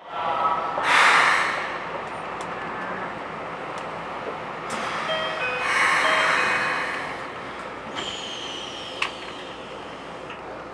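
Keikyu New 1000 series train starting off, heard inside the car: a burst of air hiss about a second in, then short stepped musical tones from its Siemens GTO "Doremifa" inverter as it begins to pull away. A thin whistle falls in pitch near the end, with a sharp click just after.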